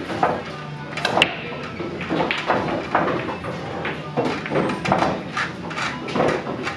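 Bar-room background of murmuring voices with scattered clicks and knocks, and one sharp click about a second in, typical of pool balls striking during an 8-ball game.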